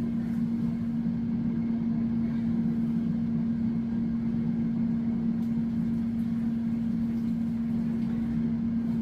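A kitchen appliance's motor humming steadily, with one low, even drone note over a soft rumble.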